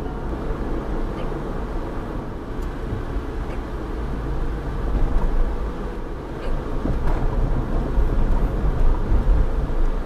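Steady road and engine rumble inside a moving car's cabin, swelling a little about halfway through and again near the end.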